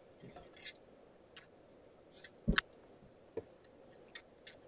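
Scattered light clicks and taps, with one louder knock about two and a half seconds in.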